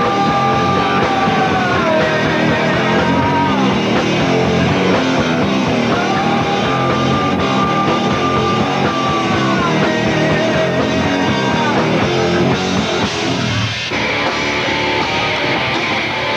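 Rock band playing live on electric guitars, with long held notes that slide down in pitch at their ends.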